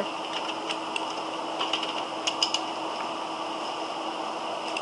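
A few light clicks from a computer keyboard and mouse, several bunched together about two seconds in, over a steady hum and hiss from the microphone.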